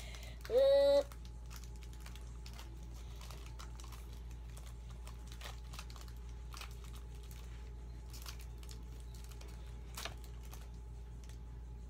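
Faint small clicks and crinkles of a Pokémon booster pack and its cards being handled and opened, with a slightly sharper click near the end. A child's short high vocal sound comes about half a second in and is the loudest thing.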